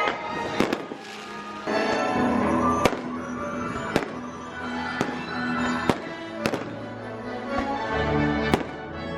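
Fireworks bursting, about nine sharp bangs roughly a second apart, over the show's Christmas song playing through loudspeakers.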